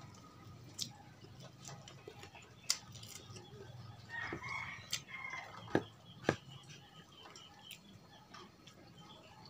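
A rooster crowing once, about four seconds in, over a few sharp clicks; the loudest clicks are a pair about six seconds in.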